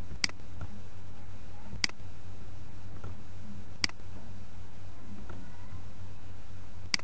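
Four sharp computer mouse clicks, unevenly spaced, over a steady low hum and hiss.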